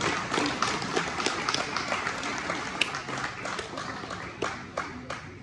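Audience applauding, many hands clapping at once, thinning out and dying down near the end.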